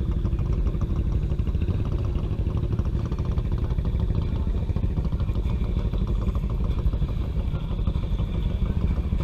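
Single-cylinder engine of a Honda Fourtrax ATV running steadily in a fast, even pulse while the quad sits deep in muddy water.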